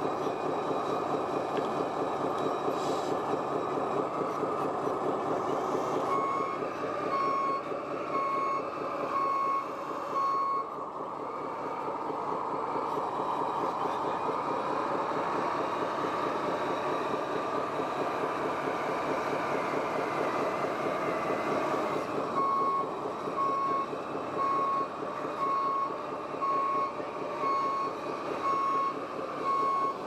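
Reversing beeper of a radio-controlled model truck or construction machine: a steady single-pitch beep about one and a half times a second, sounding for about four seconds from roughly 6 s in and again from about 22 s on. Under it runs the continuous whirr of small electric drive motors and gearing, with a whine that rises and falls in the middle stretch.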